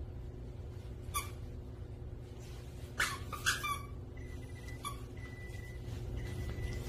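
Pungsan puppy giving a few short, sharp yips while playing with a toy, the loudest two close together around the middle, over a steady low hum.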